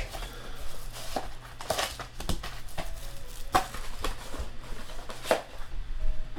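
Plastic wrapping on a box of football trading cards crinkling and tearing as it is opened by hand, in irregular sharp crackles.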